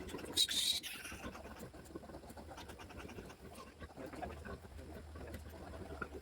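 A piglet gives one short high-pitched squeal about half a second in, then faint scratching and rustling of handling.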